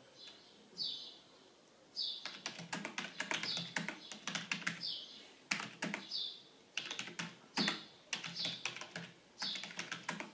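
Fast typing on a Logitech K235 membrane keyboard: quick runs of key clicks, starting about two seconds in. A short high chirp also repeats about once a second.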